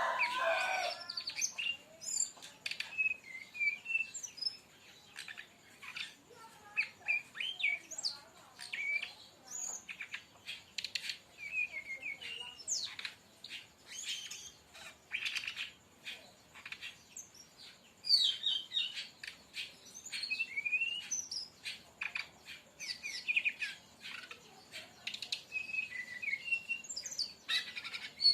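Brown-chested jungle flycatcher song: a busy run of quick, varied chirps, short twittering phrases and sharp ticks, repeating with brief gaps.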